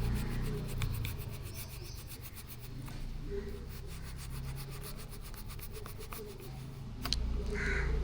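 Rubbing and scraping as the excess length of a rubber handlebar grip is cut off by hand, with a sharp click about seven seconds in.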